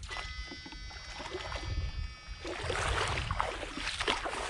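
Legs wading through shallow muddy water, sloshing and splashing, louder and busier from about halfway through, over a low wind rumble. A thin high whine fades out about a second in.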